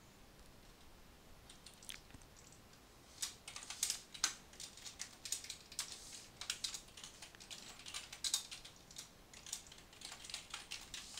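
Typing on a computer keyboard: a few scattered key presses, then quick, irregular typing from about three seconds in.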